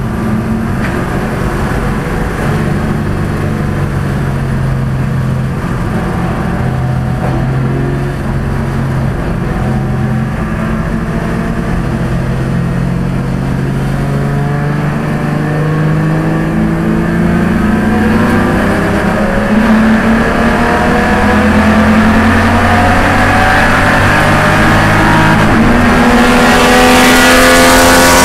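BMW E30 race car's inline-six heard from inside the stripped cabin, running steadily at moderate revs, then climbing in pitch through the second half as the car accelerates in gear, getting louder near the end.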